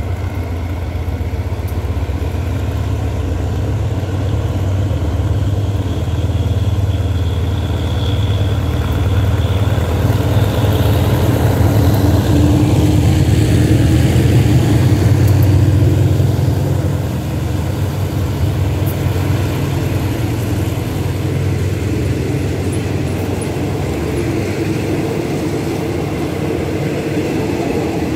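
Diesel-electric locomotive GEA 4547 drawing closer with its engine running in a deep drone. The drone is loudest as the locomotive passes, about halfway through, then falls off as the passenger carriages roll by.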